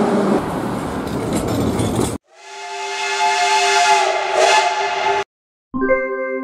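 A metro train pulling into the station with a steady rushing rumble that cuts off about two seconds in. Then a P36 steam locomotive's whistle blows for about three seconds over hissing steam, and near the end a piano-like music jingle begins.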